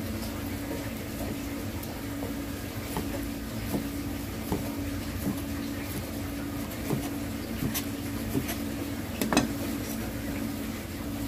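Long sashimi knife slicing raw fish on a plastic cutting board: scattered soft taps and clicks as the blade meets the board, with a sharper click near the end. A steady mechanical hum runs underneath.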